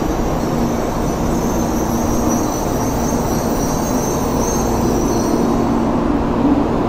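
Shinkansen train at the station: a steady rumble with a faint hum, and a high whine that fades out about five seconds in.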